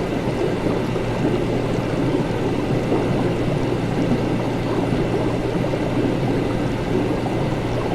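Laboratory ambience: continuous watery bubbling, like liquid in lab glassware, over a steady low equipment hum, with no change throughout.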